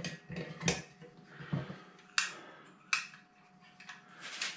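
Metal pot-support arms of a small folding gas camping stove being folded in and the stove packed up: several sharp metal clicks and light rattles, about a second apart, with a quick cluster near the end.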